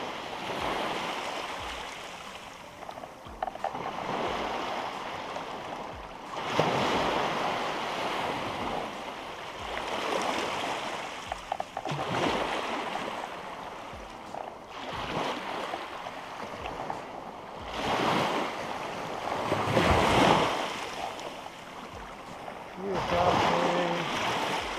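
Small surf breaking and washing up the sand in rushing surges every few seconds, with wind buffeting the microphone.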